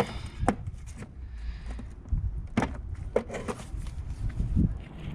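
A brake caliper piston wind-back tool and its adapters being handled and tried on the piston: a run of sharp knocks and clicks at irregular intervals, over low handling noise.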